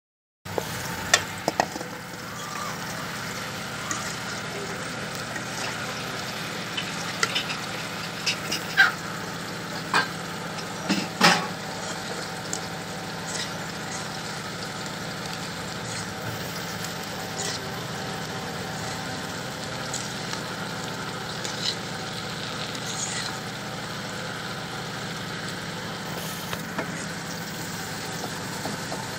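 Rui (rohu) fish pieces and onions sizzling in oil in a blackened iron karai, with a metal spatula scraping and clacking against the pan as they are stirred. The clacks come thickest in the first half, the loudest a little before halfway.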